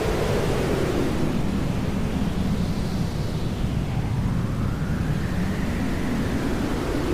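Hair dryer blowing steadily, a constant rushing noise whose tone slowly sweeps up and down.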